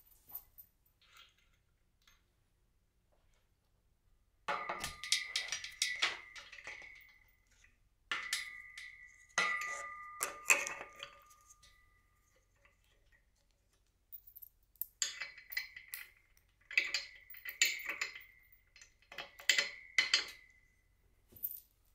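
Metal hardware of a pulley tower clinking and knocking while a pulley wheel and steel cable are fitted into a bracket at the base of the frame. Some knocks leave a short metallic ring. The clinks come in three spells with short pauses between them.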